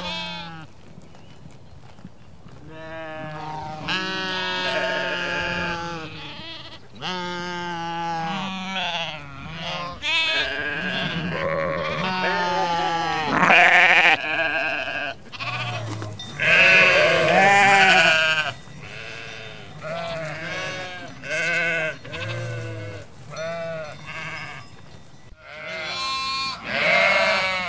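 Sheep bleating in a long run of calls, one after another and sometimes overlapping. Several animals call, some deep and some higher-pitched, and many of the calls have a quavering tremble.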